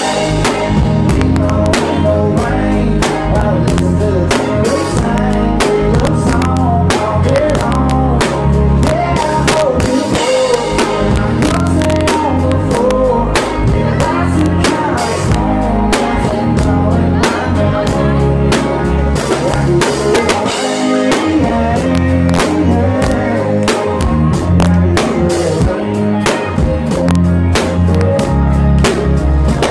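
Live country band: a male singer singing over strummed acoustic guitar, bass and a drum kit keeping a steady beat.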